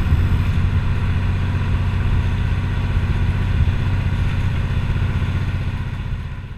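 Outrigger bangka boat's engine running steadily under way, a fast, even low pulsing, fading out near the end.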